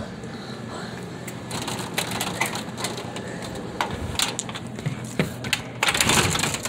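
Handling noise from a phone being carried and moved around: rubbing and scraping against its microphone, with scattered sharp clicks and a louder rustle near the end.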